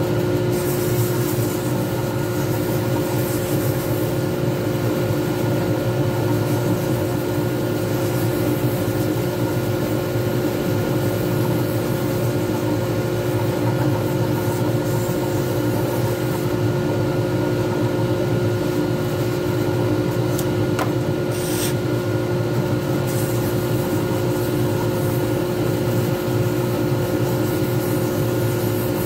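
Lathe motor running steadily with a steady whine while sandpaper is held against a spinning resin pen blank, sanding it smooth. There is a short, sharper hiss about three quarters of the way through.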